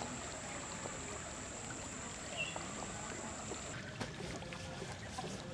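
Outdoor river ambience: a steady low wash of water and background noise with faint distant voices, and a few faint knocks and splashes in the second half.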